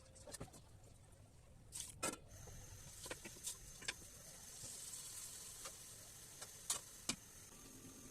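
Faint kitchen handling sounds: scattered light clicks and taps over a low steady hiss.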